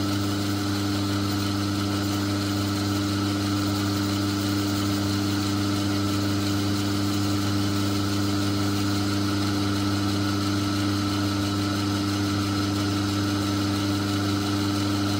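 Myford lathe running steadily, its motor and drive giving a steady hum, while the tool takes a very light hand-fed cut on a brass bar.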